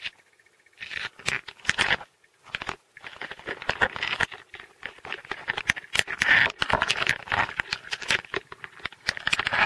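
A crab's legs and claws clicking and scraping against an underwater camera housing as it crawls over the lens: a dense run of sharp clicks and scratches that starts about a second in, breaks off briefly, then carries on.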